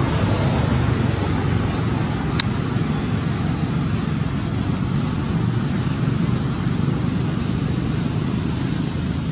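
Steady low rumbling background noise, even throughout, with a single sharp click about two and a half seconds in.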